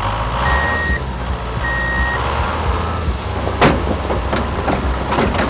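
RC truck sound unit playing a low engine rumble with a reversing beeper, two half-second beeps in the first two seconds. A few sharp knocks follow later, the loudest about three and a half seconds in.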